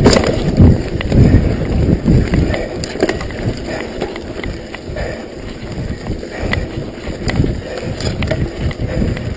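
Mountain bike riding a rough dirt trail, heard through a rider-worn sunglasses camera: wind buffets the microphone as an uneven low rumble, with scattered knocks and rattles from the bike over the ground.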